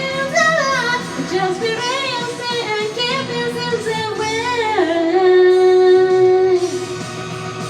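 Female voice singing a pop-rock cover over a band backing track, with wavering runs that settle into one long held high note with vibrato before stopping about seven seconds in, leaving the instrumental playing.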